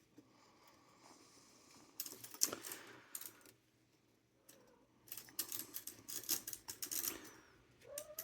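Small metallic clicks and rattles of a Corona 4 typewriter's ribbon spool and mechanism being handled while the ribbon is fitted and threaded, in two spells with a short pause between. A cat starts to meow at the very end.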